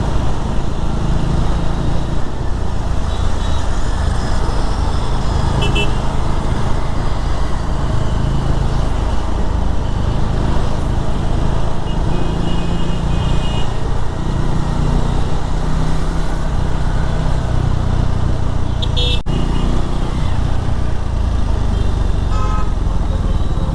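Riding a KTM Duke 390 motorcycle in traffic: steady wind rush and road rumble on the microphone, with the bike's single-cylinder engine beneath it and a few short horn toots from surrounding traffic.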